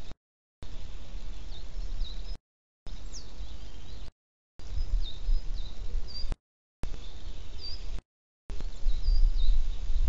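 Small songbirds chirping in short, high notes over a low rumble. The sound drops out to silence for about half a second roughly every two seconds, as a live stream's audio does.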